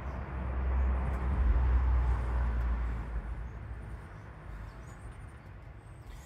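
A vehicle passing by: a low rumble with a hiss that swells over the first two seconds or so, then fades away.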